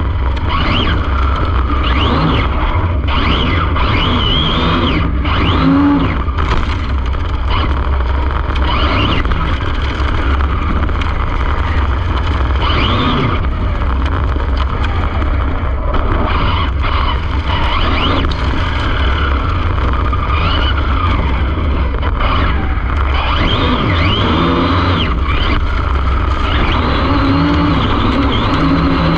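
Arrma Infraction 6S brushless RC car driving hard, heard from its onboard camera: the motor's whine keeps rising and falling with the throttle over a heavy, steady low rumble of wind and tyre noise.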